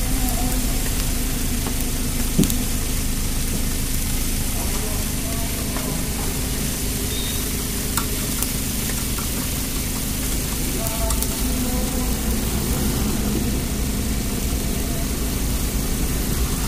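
Skewered mutton tikka sizzling and crackling over glowing charcoal as it is basted with a brush, with a steady low hum and faint voices in the background. A single sharp knock sounds about two and a half seconds in.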